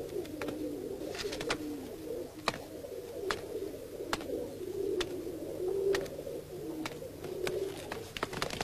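Pigeons cooing in low, repeated warbling phrases, with scattered sharp clicks through it.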